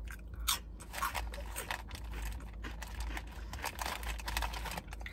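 A person chewing a crunchy snack, a run of short, irregular crunches.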